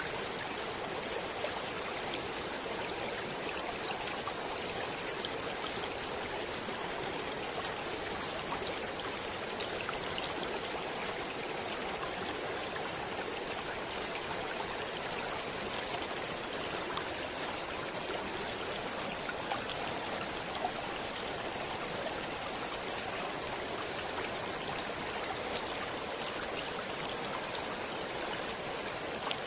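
Water flowing steadily in a stream: an even, continuous rushing hiss with faint small splashes here and there.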